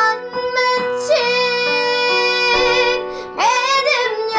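A young girl singing long, high held notes with vibrato, sliding up into them near the start and again about three and a half seconds in, over instrumental backing.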